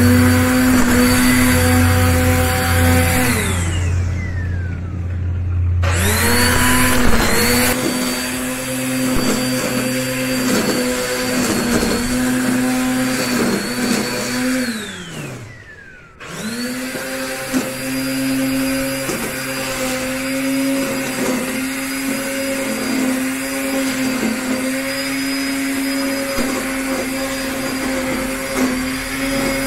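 Black & Decker GrassHog 800 W electric string trimmer motor running with a steady whine and small dips in pitch. Twice it is switched off, its pitch falling as it spins down, then started again with a quick rise back to full speed.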